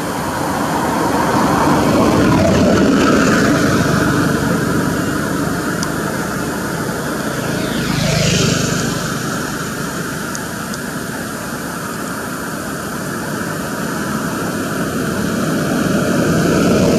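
Steady engine noise of passing traffic, with one vehicle going by close about eight seconds in, its sound sweeping down and then back up in pitch as it passes.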